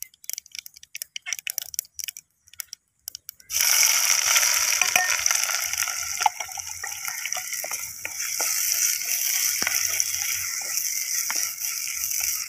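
Mustard seeds crackling in hot oil in a clay pot, then, about three and a half seconds in, a sudden loud sizzle as sliced onions go into the oil and keep frying, with a wooden spatula knocking and scraping against the pot as they are stirred.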